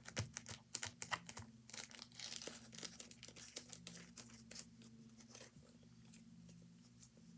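Plastic zip-top bag crinkling faintly as it is pressed shut along its seal: an irregular run of sharp crackles that thins out over the second half.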